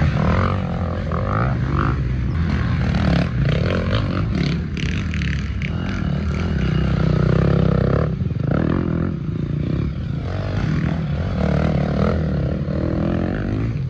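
Motorcycle engine running, with its pitch shifting up and down.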